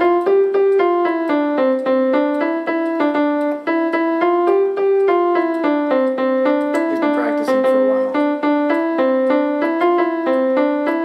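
Electronic keyboard with a piano voice playing a simple melody, one evenly paced note at a time, in a single line without a bass part.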